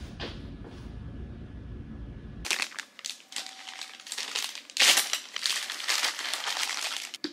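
Clear plastic zip-top bag crinkling and rustling in the hands as it is opened and a food container is pulled out. This follows a low steady rumble that cuts off about two and a half seconds in.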